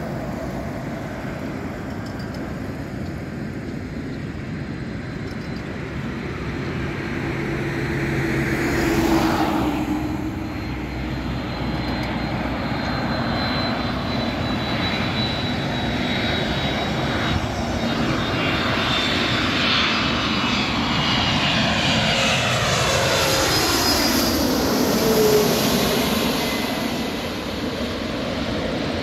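Boeing 767-300ER freighter's twin jet engines on landing approach, growing louder as it comes near and passes by, with whining engine tones that fall in pitch near the end. A car passes on the road about nine seconds in.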